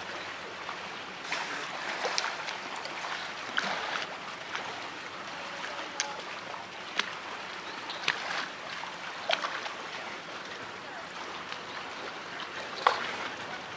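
Water splashing and trickling steadily over rock, with scattered sharp ticks now and then, the loudest near the end.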